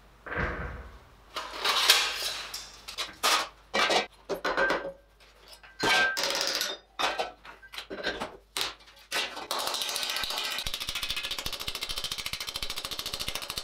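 Handling clanks and scrapes of steel tools and sheet, then from about nine seconds in a long run of rapid, even hand-hammer taps. The taps are planishing thin stainless steel plate (about 1 mm) over a steel ball stake.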